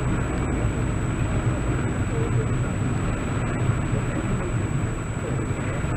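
Steady driving noise inside a car in typhoon weather: a low rumble of road and engine under a constant hiss of rain and wind, with a faint thin high whine throughout.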